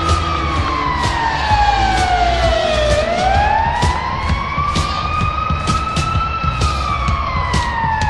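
Washington Capitals' 1999 arena goal horn, a siren wailing slowly down and up in pitch, each sweep about three seconds long. Beneath it are a low rumble and repeated sharp hits.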